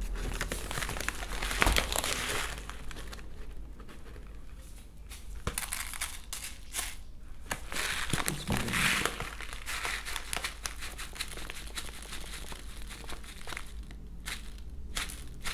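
A feed bag crinkling as it is handled while bird-feed pellets are spooned and trickled from it into a plastic tub on a kitchen scale, with scattered small clicks of pellets landing. The crinkling is louder about 1–2 s in and again around 8–9 s.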